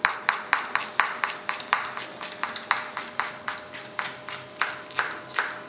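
Kitchen knife chopping on a cutting board: quick, even strokes at about four a second.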